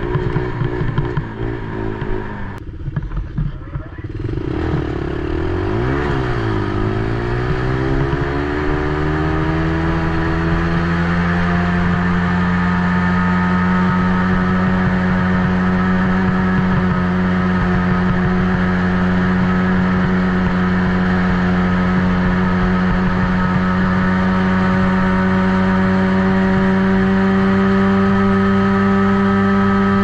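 Small youth ATV engine running, heard close up from a camera on the quad. Its pitch dips and climbs a few seconds in, then settles into a steady, even drone that creeps slightly higher.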